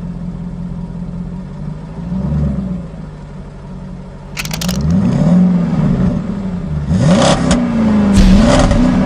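Pickup truck engine revving up and down several times, with sharp clattering noises about halfway through and again near the end.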